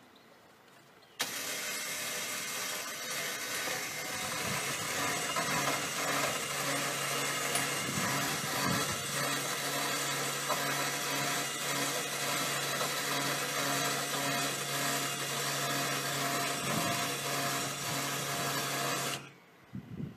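An engine running steadily under a wide hiss, holding a constant hum. It starts suddenly about a second in and stops suddenly near the end.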